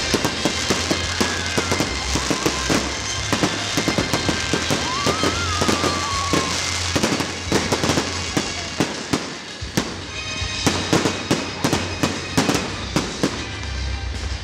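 Fireworks going off in quick succession: many sharp bangs and crackles, thickest in the last few seconds. A whistle rises then falls about five seconds in. Music with a steady bass plays underneath.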